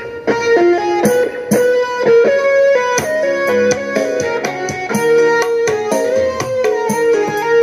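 Music with quick plucked notes playing through a small speaker driven by a Kerndy AV-888BT amplifier's center-channel output, as a check that this output works.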